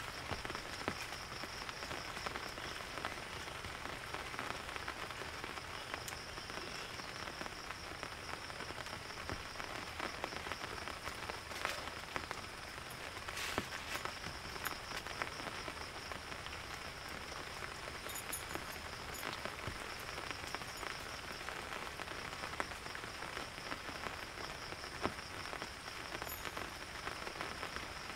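Steady rain falling, with many individual drops ticking close by. A steady high-pitched drone runs beneath it.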